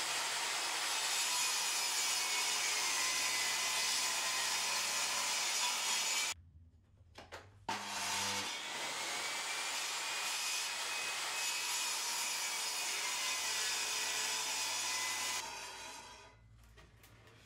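Small benchtop table saw running and crosscutting plywood on a sled, a steady noisy whine whose pitch sags and recovers as the blade cuts. It breaks off suddenly about six seconds in, starts again a second and a half later, then winds down near the end.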